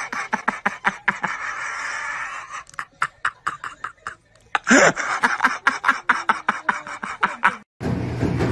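A person laughing in quick, breathy bursts, which break off about three seconds in and start again near five seconds. Near the end, drumming on plastic buckets begins.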